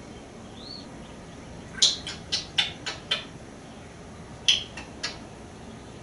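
African grey parrot giving short, sharp, high-pitched chirps and clicks: a quick run of about five, then three more a second and a half later.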